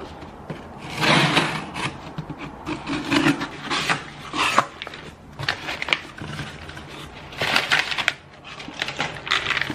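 A cardboard parcel being opened by hand: packing tape pulled off, the box flaps folded back, and crumpled brown paper packing rustling as it is lifted out, in several irregular bursts.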